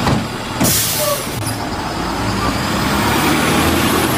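Front-loading garbage truck's diesel engine running with a steady low rumble, with a sharp hiss of air about half a second in, like an air brake releasing.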